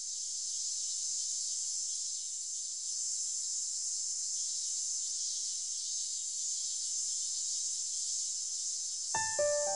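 Steady, high insect drone of cicadas, fading in at the start and holding even. About nine seconds in, a few sustained musical notes come in over it.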